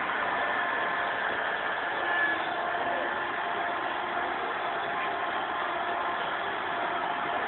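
Small motor and gears of a homemade RC combine harvester running steadily, a constant whirr with a faint steady whine.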